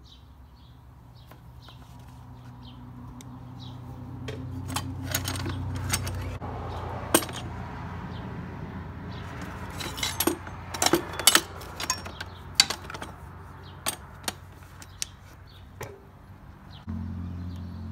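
Garden hand tools clinking, knocking and rattling against each other and the bucket as they are rummaged through, in irregular sharp clicks. A low steady hum runs underneath and grows louder near the end.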